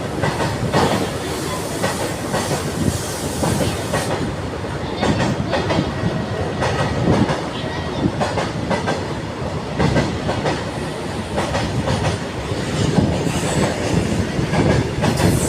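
A train running past on the track, its wheels clattering over the rails with a steady run of irregular knocks.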